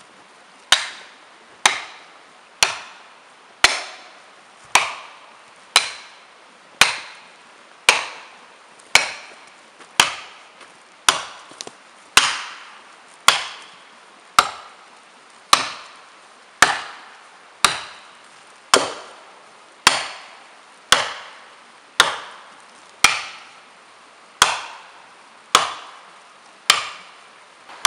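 Back of an axe head driving plastic felling wedges into the back cut of a large dead pine, in a steady rhythm of about one blow a second. Each blow is a sharp crack that trails off quickly. The wedges are being driven to lift and tip the tree toward its lay.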